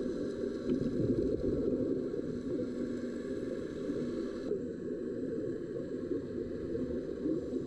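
Underwater ambience picked up by a camera in a dive housing: a dense, muffled low rush of water noise, steady throughout, with faint steady tones above it.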